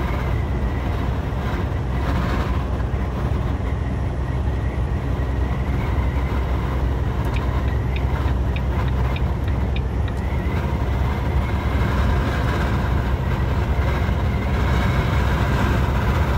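Semi-truck cab interior: steady low rumble of the truck's running engine, with wind noise from wind blowing in through the gaps in the cab. A short run of faint ticks comes about halfway through.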